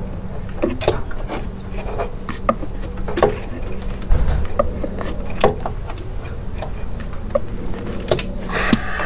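Irregular small clicks and metal knocks from a hand tool working the nut on the alternator's main power-wire terminal, with a louder knock about four seconds in, over a steady low buzzing hum.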